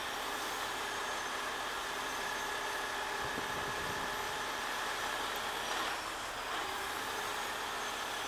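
A 50-ton rotator tow truck's diesel engine running steadily as it powers the boom lifting a suspended forklift, with a faint steady whine over it.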